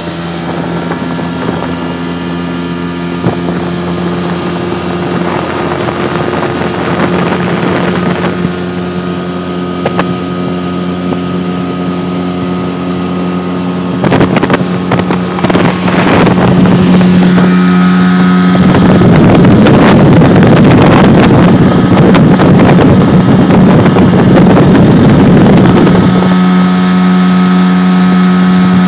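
Small boat's outboard motor running steadily at speed, a constant engine drone. Wind buffets the microphone, growing loud about halfway through and easing a few seconds before the end.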